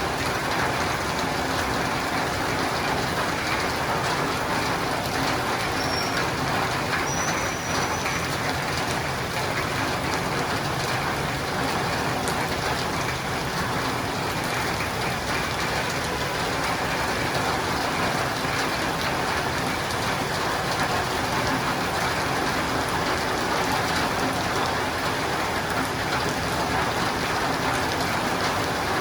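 Steady rain falling on a roof and running down windows, an even, unbroken patter.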